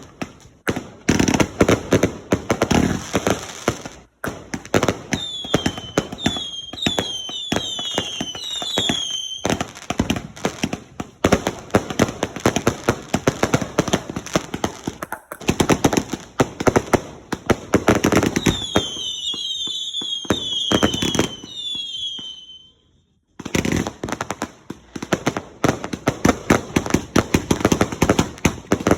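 Consumer fireworks cakes firing: a fast, continuous string of sharp bangs and crackles. Two runs of whistling shells, each a rapid series of short sliding whistles, come about five seconds in and again around eighteen seconds. There is a brief break just before the last few seconds, then the bangs start again.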